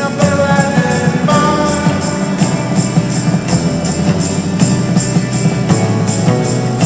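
Band playing a song with a steady beat and crisp high percussion strokes several times a second, and sustained melodic notes in the first two seconds.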